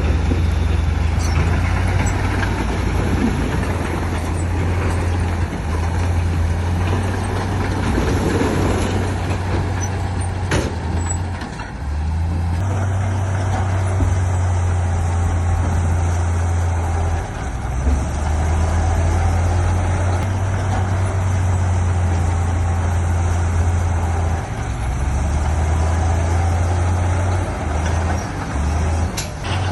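Heavy diesel earthmoving machinery running under load: a deep, steady engine drone that dips briefly a few times, with one sharp knock about ten seconds in.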